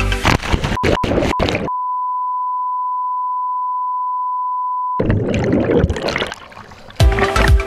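Dance music stutters and cuts out into a steady 1 kHz test-tone beep, the tone that goes with TV colour bars, lasting about three seconds. It gives way to a rush of underwater bubbling before the music returns near the end.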